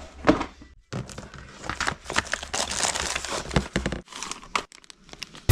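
Irregular crinkling and crackling noises with scattered sharp clicks, broken by two brief gaps.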